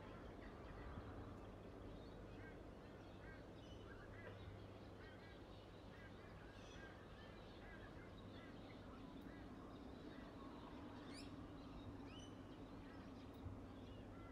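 Near silence: faint room tone with a low hum, and faint bird chirps in the background.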